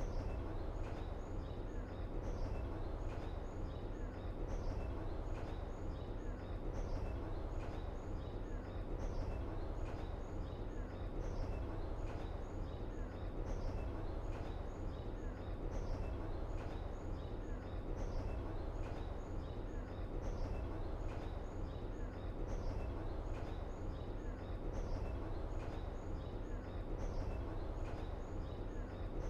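Steady outdoor background ambience: a constant low rumble with small high chirps, bird or insect, repeating at an even pace.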